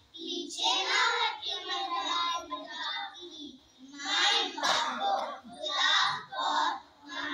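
A group of young children singing together in unison in Hindi, in short phrases with brief breaks between them.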